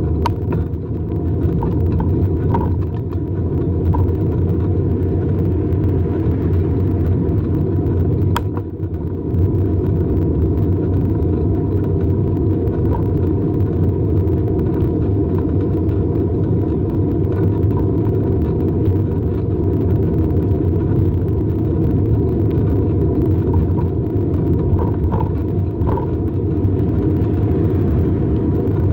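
Steady low rumble of a bicycle rolling along an asphalt trail: tyre noise on the pavement and wind over the handlebar-mounted microphone. A single sharp click comes about eight seconds in.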